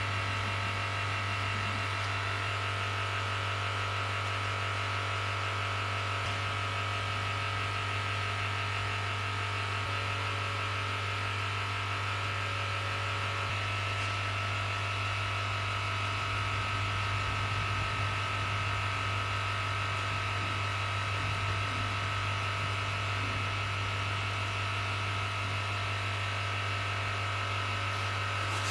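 A small electric motor running steadily, with a constant electric hum and a few steady higher tones.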